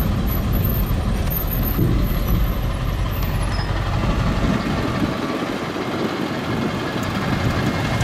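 Pickup truck carrying a camper driving slowly over a dirt lot, heard from inside the cab: a steady low engine and road rumble with a rough, rattly texture. The deepest part of the rumble thins out about five seconds in.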